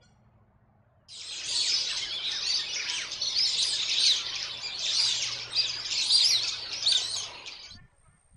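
A dense chorus of many small birds chirping and twittering together, starting suddenly about a second in and cutting off shortly before the end.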